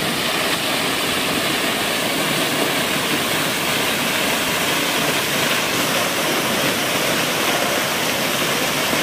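Steady rush of a waterfall pouring down and splashing over rocks.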